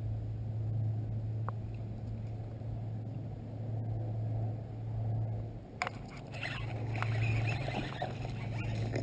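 Boat motor humming steadily at a low pitch. About six seconds in there is a sharp click, then irregular scraping and rattling.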